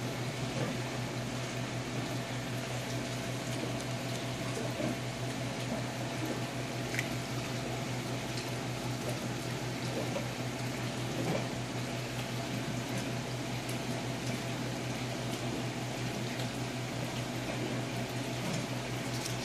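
Aquarium filtration running: steady bubbling and splashing of water from a PVC filter return into the stock tank over a low, constant pump hum, with a few faint ticks.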